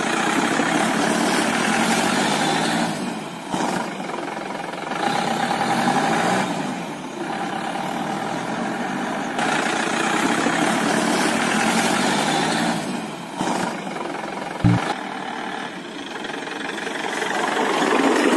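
Engine sound effect laid over the picture: a vehicle engine running and revving, its pitch rising and falling every few seconds, with a short knock near the end.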